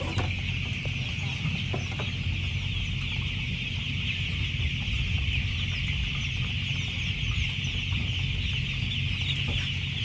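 A flock of tens of thousands of young broiler chickens peeping without pause, a dense chorus of short, high, falling chirps, over a steady low hum of the house's ventilation fans.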